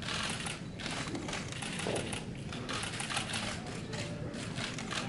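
Several DSLR camera shutters firing in rapid bursts of clicks, overlapping and pausing briefly between bursts.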